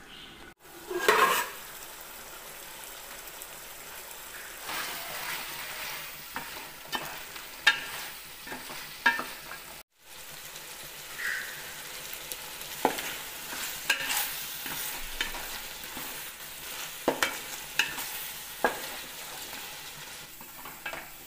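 Chicken pieces frying in masala in a metal pot with a steady sizzle, stirred with repeated scrapes and knocks of the spatula against the pot. A louder clatter about a second in.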